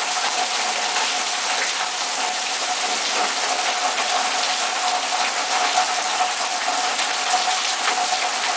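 Heavy thunderstorm downpour: a dense, steady hiss of rain pouring onto trees and foliage, flecked with close drop impacts. A faint steady tone runs underneath.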